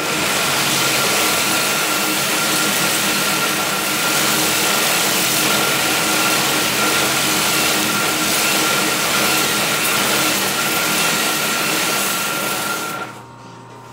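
Homemade belt sander driven by a sewing machine motor, grinding a workpiece pressed by hand against its abrasive belt: a loud, steady grinding noise with a high whine. It stops about thirteen seconds in as the piece comes off, leaving the motor and belt running more quietly.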